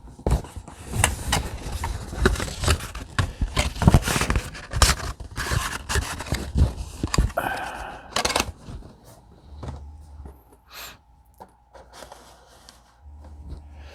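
Trading card packaging being opened by hand, with dense rustling, scraping and tearing for about eight seconds, then sparser handling noises.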